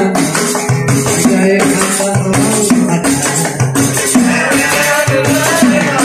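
Live Yemeni Yafa'i folk music: hand drums and a small frame drum keep a quick, rattling rhythm, with a bending melody line over them.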